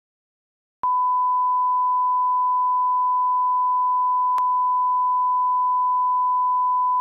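Broadcast colour-bars line-up tone: a single steady 1 kHz beep. It starts abruptly with a click about a second in, and a faint click comes about halfway through.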